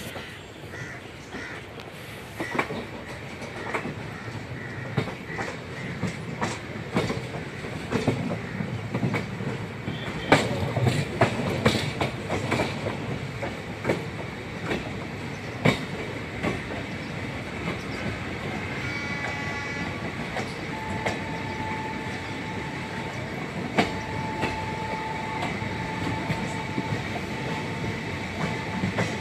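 Passenger train coach's wheels clicking irregularly over rail joints and points, heard from an open coach doorway. From about two-thirds in, a steady thin squeal of wheels against rail joins the clicks.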